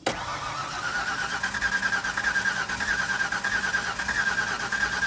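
A 1994 Mazda B4000's 4.0-litre V6 being cranked by its starter motor, turning over with an even, rhythmic chug that starts abruptly and never fires. The engine has compression but is starved of fuel, which the owner believes is a failed fuel pump.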